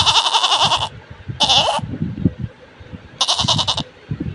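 Goat bleating: a long, quavering bleat that ends about a second in, then two shorter bleats.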